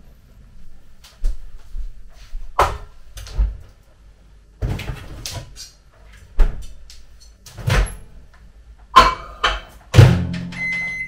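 Kitchen clatter from preparing food: about ten sharp knocks and clunks of things being handled and set down, the loudest near the end. A short high beep follows.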